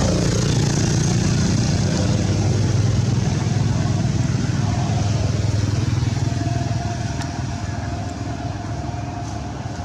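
Road traffic: a motor vehicle engine, likely a motorcycle, passing close, its low hum slowly fading away over the last few seconds.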